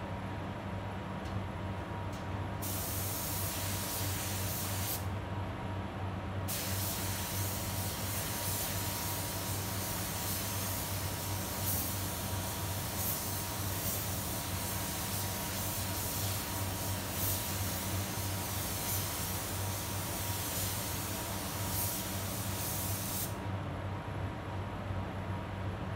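Gravity-feed paint spray gun hissing as paint is sprayed onto a car bumper: a short burst about three seconds in, then a long unbroken pass of about seventeen seconds that stops a few seconds before the end. A steady low hum runs underneath throughout.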